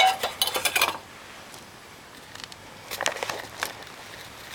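Clinks and knocks from an old glass item being handled and set down on a gritty concrete floor, a quick run of them in the first second, then a few softer taps and scrapes about three seconds in.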